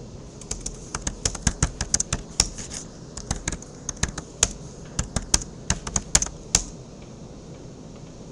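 Computer keyboard typing: a quick, uneven run of keystrokes that stops about six and a half seconds in.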